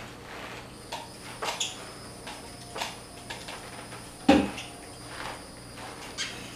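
Scattered knocks and clunks on a tile floor from mopping and from footsteps in a hinged leg cast, the loudest a heavy thump about four seconds in.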